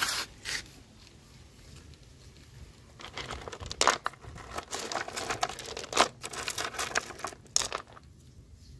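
Lumps of dark rock being moved by hand in a pot, the stones clattering and scraping against each other in a dense run of clicks from about three seconds in until near the end. A couple of brief clicks come right at the start.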